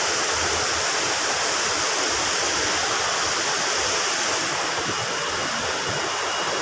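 A steady, even rushing noise with a hiss on top, unchanged throughout.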